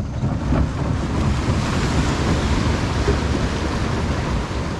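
Steady rush of wind buffeting the microphone over the wash of small sea waves.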